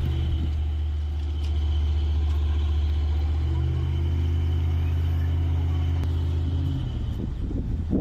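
Heavy engine running at a steady speed, a deep even drone that shifts slightly midway and drops away near the end.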